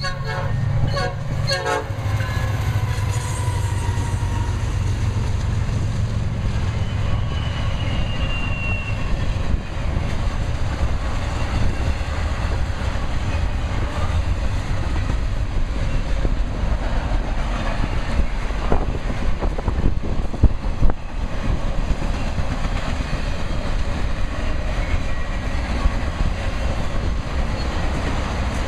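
A train passing, with a steady low rumble and the clatter of wheels on rail. Short horn blasts sound near the start.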